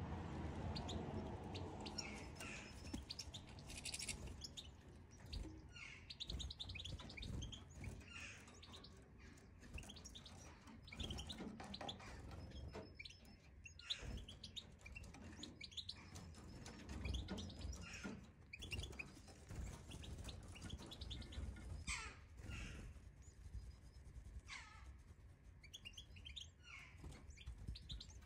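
European goldfinches chirping at a nest with nestlings: scattered short, high, quiet chirps, a few of them sweeping down in pitch, over a faint low rumble.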